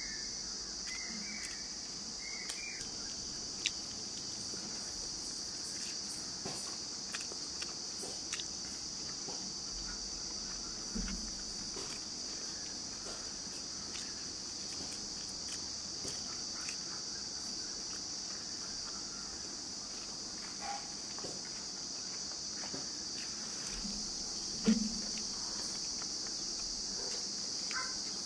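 Insects chirring in a steady, unbroken high drone. Over it come faint, scattered clicks and smacks of rice being eaten by hand, with one sharper click near the end.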